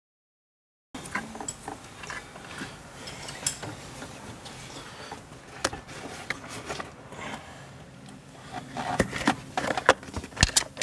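Small plastic clicks and taps of hands handling and plugging in the orange wiring connectors of the ABS pump harness, scattered at first and coming thicker and sharper near the end. The sound starts about a second in.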